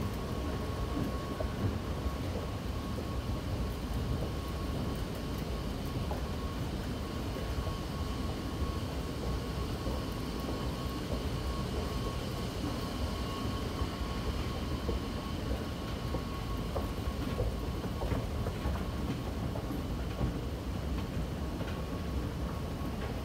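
Long escalator running: a steady mechanical rumble with a thin, constant hum above it.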